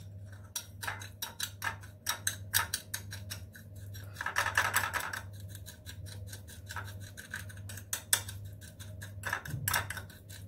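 Metal teaspoon stirring sugar and cooking oil in a small glass dish, scraping and clicking against the glass, with a longer, denser scrape around the middle.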